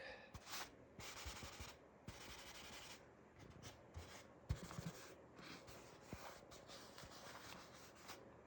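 Faint rubbing and scrubbing strokes of hand cleaning, coming in spells of about a second with short pauses between, and a few soft knocks.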